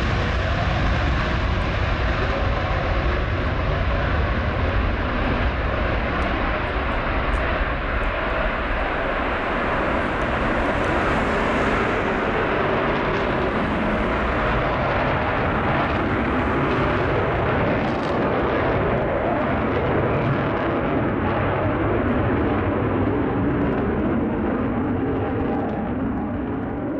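Eurofighter Typhoon's twin Eurojet EJ200 turbofans at full afterburner through take-off and a steep climb: a loud, steady jet roar with a ragged crackle, easing slightly near the end as the jet climbs away.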